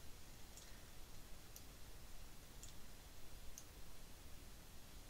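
Faint short, sharp clicks about once a second over low background hiss.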